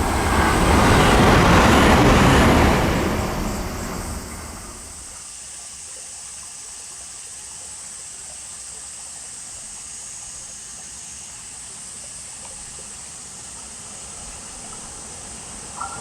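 Train passing close by, its noise peaking about two seconds in and dying away over the next couple of seconds. It leaves a steady, much quieter background hiss with a faint steady high tone.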